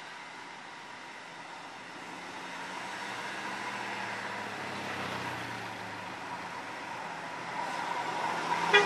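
Large coach's diesel engine running as the bus takes a bend and approaches, getting louder as it nears. A brief sharp sound near the end is the loudest moment.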